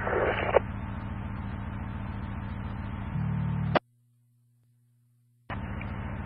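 Fire department radio channel heard through a scanner: a keyed transmission carrying only hiss and a low buzz, ending with a squelch-tail burst a little under four seconds in. After a second and a half of dead silence, another transmission opens with the same hiss near the end.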